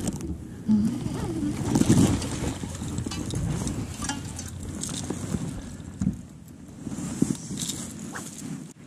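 Rustling and irregular knocks close to the microphone as an angler lands a small bass by hand and lifts it aboard, with some wind noise.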